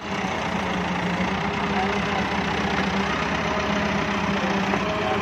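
Diesel engines of Massey Ferguson tractors running steadily while pulling a cultivator through soil, a constant engine note with noise over it.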